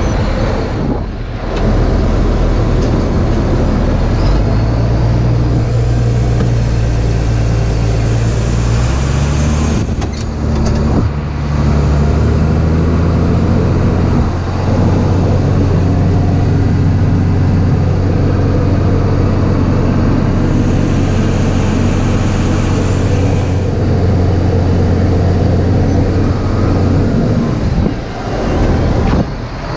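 Large diesel farm-machinery engine running under load, its pitch stepping up a few seconds in and holding steady before falling off near the end.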